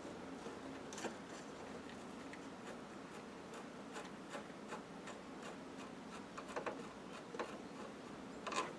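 Faint, irregular light clicks and taps of a hand wrench on metal as the clutch master cylinder is unbolted, with a steady low background between them.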